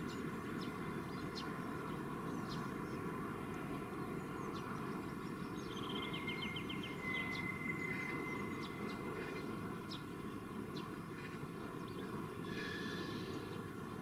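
Small songbirds chirping and singing over a steady low hum of distant city traffic, with a rapid trill and a held high note about six seconds in.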